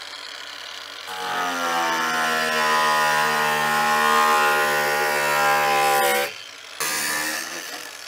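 Bauer 20V cordless angle grinder cutting through a plastic sleigh-ski skin to trim it to length. Its steady whine starts about a second in and stops suddenly about six seconds in, followed by a short second burst.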